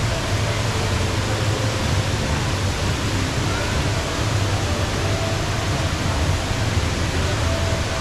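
The Rain Vortex, Jewel Changi Airport's indoor waterfall, pouring from an opening in the glass dome into its basin: a steady, dense rush of falling water, heavy in the low end.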